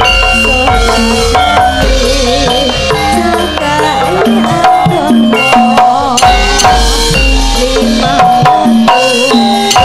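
A sinden, a female Javanese singer, sings with a wide vibrato through a microphone over a gamelan ensemble. Struck bronze metallophone notes ring underneath, and a drum beats at times.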